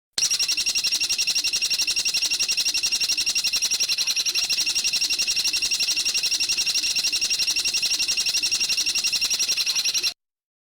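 A songbird's long, rapid trill of about ten even, high notes a second, held steady for around ten seconds, then cut off abruptly. It is a looped training recording of the kind played to cage birds to teach them calls.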